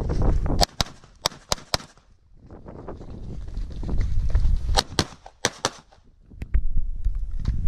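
Handgun shots fired in quick strings: about five about a second in, then four more around five seconds in, with a few fainter shots near the end.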